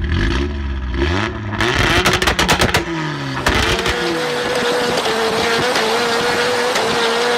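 Drift car's engine revving hard, rising and falling in pitch, with a quick run of cracks about two to three seconds in, then held at high revs in a steady, slightly wavering note as the car slides.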